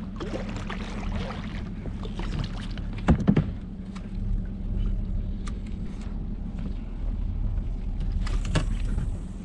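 Water lapping against a small fishing boat as it drifts, over a steady low hum, with a few sharp knocks about three seconds in and a few more clicks near the end.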